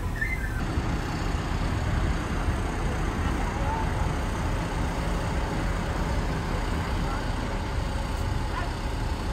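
Heavy diesel earthmoving machinery running, a steady low engine noise without breaks.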